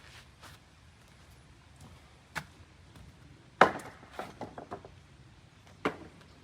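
Sharp knocks of a tool on wooden deck boards as nails are worked out of the deck: three knocks, the middle one loudest and followed by a quick rattle of lighter clicks.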